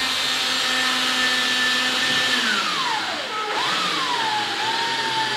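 Power drill-driver running as it drives a long screw through a window's nail flange into the stud, a steady motor whine. About two and a half seconds in the pitch sags as the screw bites, picks up briefly, then holds lower under the load.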